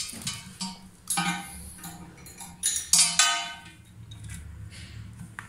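Several sharp metallic clinks, each with a brief ring, from a metal wrench knocking against the mounting bolts and fittings of a wall-hung toilet as they are worked on and tightened. The loudest clinks come about three seconds in.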